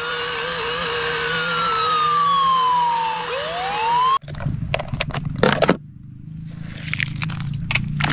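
Electronic siren of a Huina remote-control toy fire truck: a slow wail that rises, falls and rises again over a steady lower tone, cutting off suddenly about four seconds in. After it come scattered plastic clicks and knocks of toy trucks being handled.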